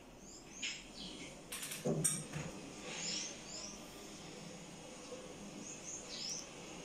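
Quiet room with faint high, short falling chirps about three times, and a few knocks and rustles about two seconds in.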